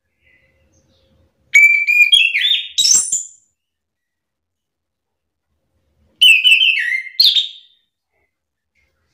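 Chestnut-capped thrush (anis kembang) singing: two loud phrases of clear whistled notes, stepping between pitches and ending in higher rising notes, a few seconds apart.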